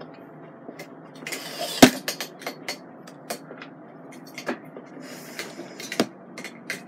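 Handling noise from a phone camera being lowered and repositioned: scattered clicks and rustling, with a sharp knock about two seconds in and another about six seconds in.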